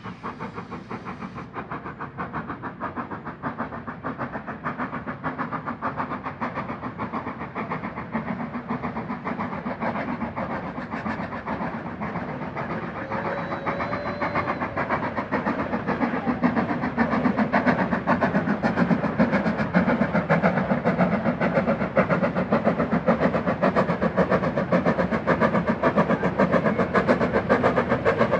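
Steam tank locomotive working hard up a 1 in 13 gradient, its exhaust beating rapidly and evenly. It grows steadily louder as it approaches, and is loudest in the second half.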